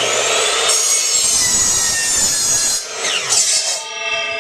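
Electric miter saw whining up to speed and cutting through a wooden 2x4 board. Its pitch drops about three seconds in as the cut finishes.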